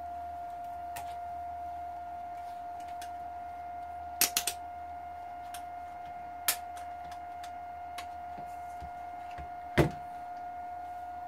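A steady high-pitched electronic whine, one tone with a faint overtone, from the bench electronics. Over it come the clicks of a handheld digital multimeter being handled: a quick run of three clicks about four seconds in, another click a couple of seconds later, and a louder knock near the end as the meter is set down on the desk.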